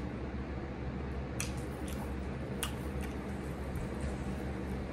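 Quiet room tone: a low steady hum, with a few faint clicks about a second and a half and two and a half seconds in.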